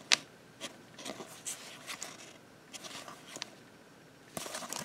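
Trading cards being flipped through by hand: scattered light clicks and soft scrapes as the cards slide across one another, with a sharper click at the start and a quick flurry near the end.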